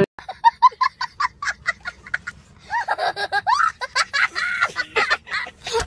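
A young child laughing hard: a quick run of short, high-pitched giggles, then longer squealing laughs that swoop up and down in pitch from about three seconds in.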